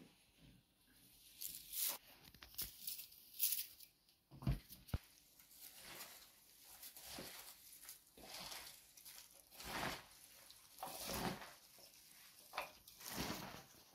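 Gloved hands tossing chopped cabbage, carrots, tomatoes and peppers in a large stainless-steel bowl: irregular rustles and crackles of the vegetables being turned over. There are two short knocks, about four and a half and five seconds in.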